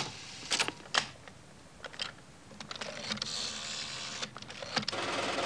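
Reel-tape telephone answering machine being operated by hand: a run of sharp clicks and clunks from its switches and the handset, with a stretch of steady whirring hiss in the middle and again near the end.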